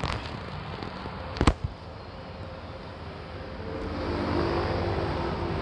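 Ford Everest's 2.5 TDCi turbodiesel engine idling, growing louder about two thirds of the way through. A single sharp knock about a second and a half in.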